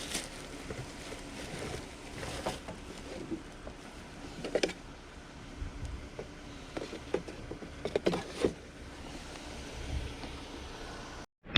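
Steady vehicle rumble and hiss, with scattered short knocks and brief squeaks.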